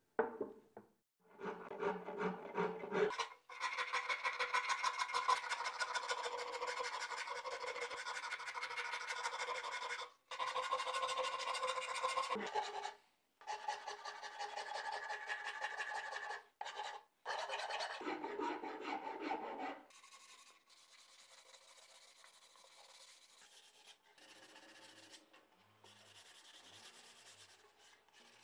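Metal hand file scraping along a wooden mandolin neck to shape it, in long runs of rapid strokes broken by short pauses. About two-thirds of the way through it gives way to quieter hand sanding of the body with sandpaper.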